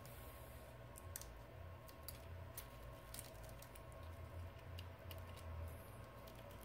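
Faint scattered clicks and small crackles as fingers pry the glass screen assembly of a Samsung Galaxy S7 Edge away from the phone's frame, a few ticks a second at irregular spacing.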